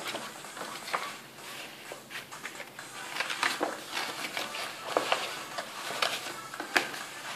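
Sheets of construction card being folded and pressed by hand, rustling and crinkling with scattered sharp crackles as the pop-up steps are pushed out.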